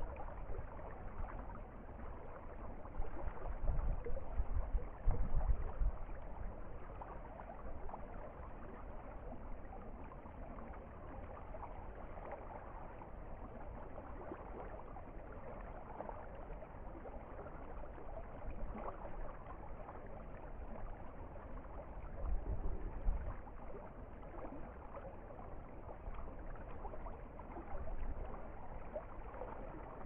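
A river of running water flows steadily, rushing and babbling over its bed. Brief low rumbles come a few seconds in and again about two-thirds of the way through.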